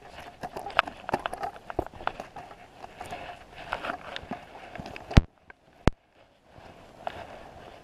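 Close handling noise of scuffs, rustles and scattered clicks as a catfish on a rope is worked into a mesh fish basket on dirt ground. About five seconds in come two sharp knocks, then a moment of near silence.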